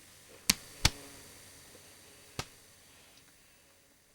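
Three sharp clicks with a short ring after each: two about a third of a second apart half a second in, and a fainter third one near two and a half seconds.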